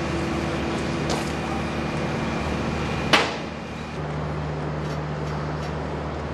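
Steady machine hum and background noise, with one sharp, loud knock just after three seconds in. About four seconds in the background changes to a different steady hum.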